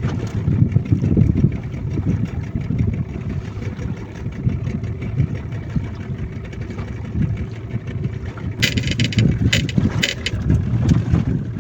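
Boat engine running steadily while the boat trolls, with dense low noise from the engine, water and wind. A few sharp, crackling bursts come near the end.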